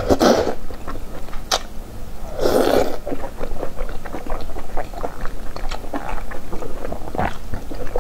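Close-miked wet eating: an oily chunk of offal slurped off chopsticks twice, at the start and about two and a half seconds in, with many small wet smacks and clicks of chewing throughout.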